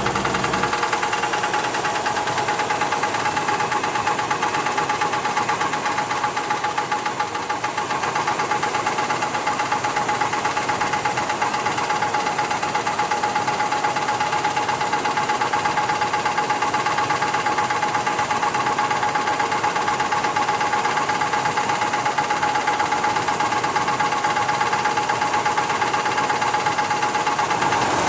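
1985 Cadillac Fleetwood Brougham engine running with a rapid, steady knocking, a steady high whine under it. The owner cannot tell what is causing the knock.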